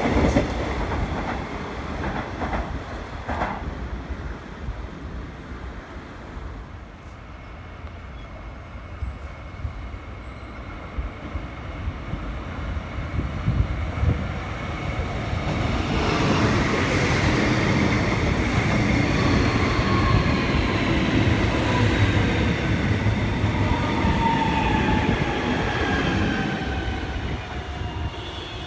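Electric suburban trains on the track. A departing train's rumble fades over the first several seconds. Then an Alstom X'Trapolis 100 electric train approaches and runs close by, its wheels rumbling on the rails and its traction motors whining in several tones that slowly fall in pitch.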